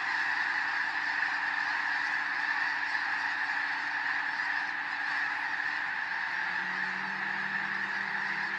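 Thousands of snow geese calling together as the flock takes flight, a dense, unbroken din of honking; the birds were flushed by a passing bald eagle. A faint low hum comes in about two-thirds of the way through.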